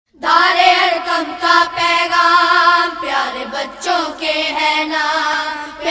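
A high voice singing a melody, starting a fraction of a second in, with short breaks between phrases.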